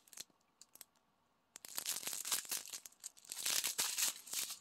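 Clear plastic packaging crinkling as it is handled by hand, starting about a second and a half in and loudest near the end, after a few faint ticks.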